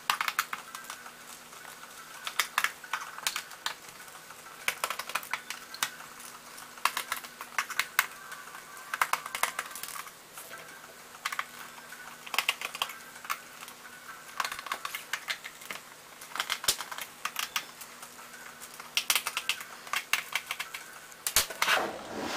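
Bursts of small, rapid clicks in groups every second or two, over a faint steady hum.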